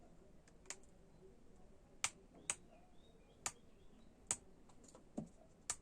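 About seven short, sharp clicks at uneven intervals over a faint background, like keys or a mouse being clicked.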